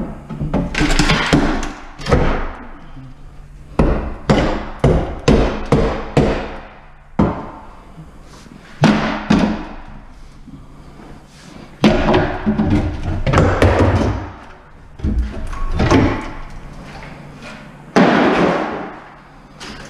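Old solid-wood kitchen cabinets being torn down by hand: repeated loud bangs, cracks and clattering crashes as shelves and boards are wrenched off the wall and dropped.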